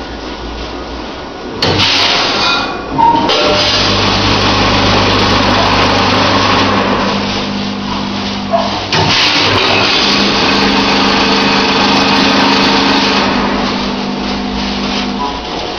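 Salt weighing and filling machine running a fill: its feeder motor hums and salt pours through the spout into a bag. The pouring starts suddenly about a second and a half in, breaks off briefly near the middle, then resumes and stops shortly before the end.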